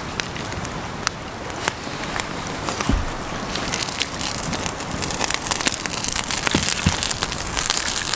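Wood campfire burning, crackling with many sharp pops over a steady hiss, the pops getting busier in the second half, with one low thump about three seconds in.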